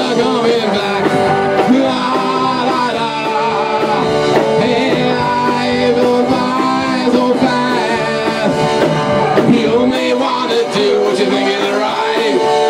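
Rock band playing live: electric guitars, bass guitar and drum kit, with held guitar notes over a steady beat.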